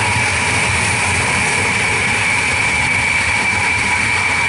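Ilyushin Il-62's four rear-mounted jet engines running at low power as the airliner taxis, a loud, steady jet whine with a high tone over a constant rush.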